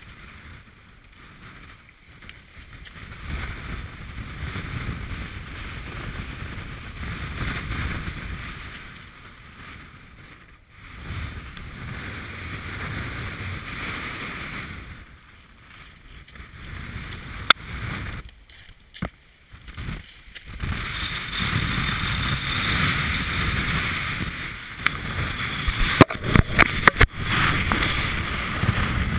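Strong, gusting wind buffeting the camera microphone, surging and easing every few seconds. A few sharp knocks from the camera being handled come in near the end.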